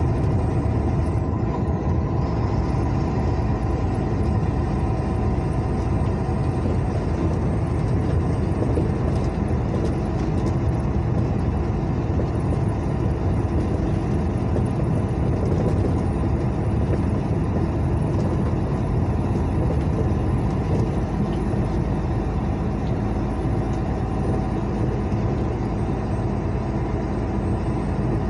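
Steady road noise of a vehicle cruising on a highway: a constant engine hum under the rush of tyres on asphalt, unchanging throughout.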